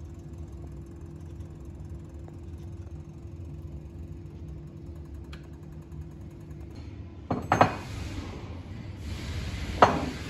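Truck-repair workshop ambience: a steady machine hum, then a few loud sharp knocks about seven and a half seconds in and a single sharp one near the end.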